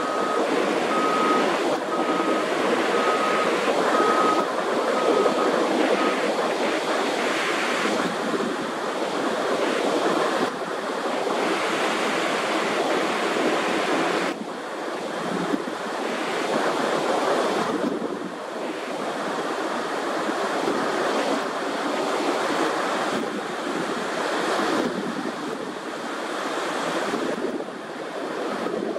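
Steady rushing noise, with a short high beep repeating about once a second during the first six seconds.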